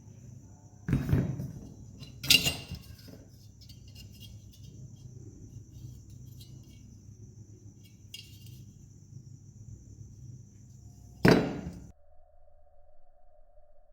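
Sharp metal clinks and knocks from parts being handled, four of them, the loudest about two seconds in and near the end, over a steady high-pitched buzz. About twelve seconds in the sound cuts off and a steady electronic tone takes over.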